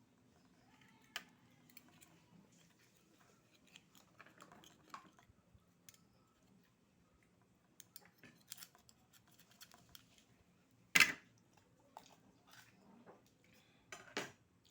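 Eating sounds from an oyster meal: scattered small clicks, crunches and clinks of shells and utensils, with a louder knock about eleven seconds in and another near the end.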